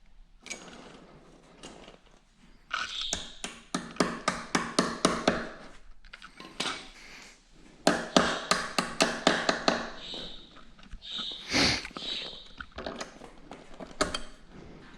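Hand tools working on a motorcycle's rear chain adjuster and axle: two runs of rapid metallic clicks at about five a second, scattered taps, and a single louder metal clunk about twelve seconds in.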